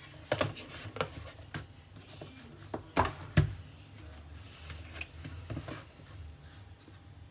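Cardboard packaging handled by hand: light taps, clicks and scrapes as card inserts and a rigid box are lifted out of a presentation box, with two louder knocks close together about three seconds in.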